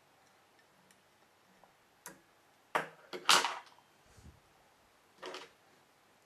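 Fly-tying tools being handled at the vise: a few light clicks, then two louder short clatters about three seconds in, a soft thump, and one more clatter a little after five seconds.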